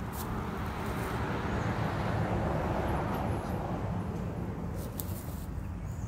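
A vehicle passing by: a rush of tyre and engine noise that builds to a peak a couple of seconds in and fades away, over a steady low rumble.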